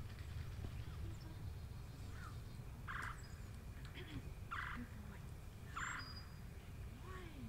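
Three short, harsh calls from a large fowl, about a second and a half apart, over a steady low rumble. Faint small-bird chirps are heard between them.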